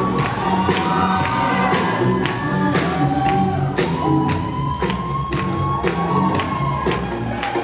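Recorded music with a steady drum beat and singing.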